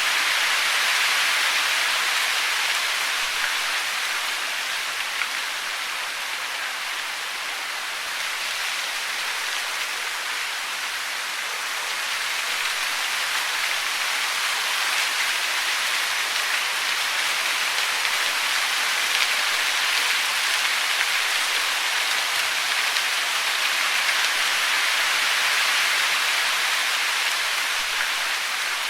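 Steady water noise, a dense even hiss like rain or falling water, that swells and eases slowly over several seconds.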